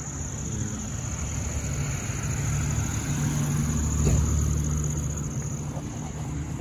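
A car driving, its engine and road noise a steady low rumble heard from inside the cabin, a little louder about four seconds in. Crickets chirp steadily in the background.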